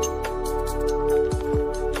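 Background electronic music: a held synth chord over kick drum beats and hi-hats.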